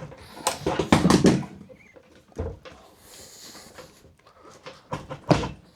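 Soap-lubricated rubber tire being worked by hand onto an electric unicycle's wheel rim: irregular rubbing and knocking of the tire bead against the rim in a few short spells.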